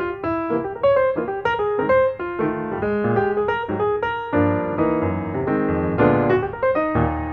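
Background piano music: a steady run of single notes, with fuller chords from about four seconds in.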